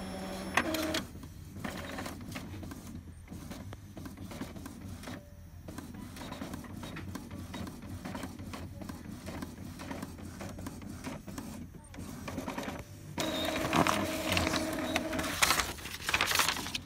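Epson L3150 inkjet printer printing a nozzle check page: its mechanism whirs steadily as the print head works. About thirteen seconds in, the motor noise grows louder with a steady-pitched whine for two or three seconds.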